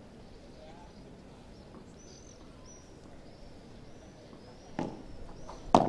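Padel ball struck by solid padel rackets: two sharp pops about a second apart near the end, the second louder, as a point opens with the serve and return. Before them, only the faint hush of a large outdoor crowd waiting quietly between points.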